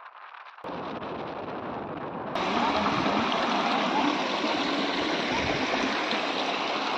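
Small rocky stream running and splashing steadily, coming in suddenly a couple of seconds in after quieter outdoor noise.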